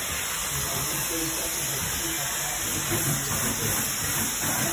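Steam cleaner hissing steadily while its brush-head wand is scrubbed over marble floor tiles.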